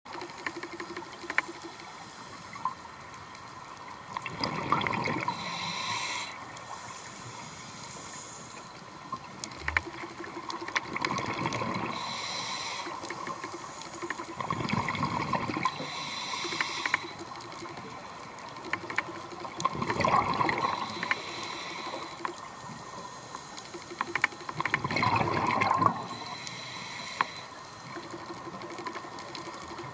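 Scuba diver breathing through a regulator underwater: five breaths about five seconds apart, each a bubbling rush of exhaled air followed by a short hiss of inhalation, with faint clicking throughout.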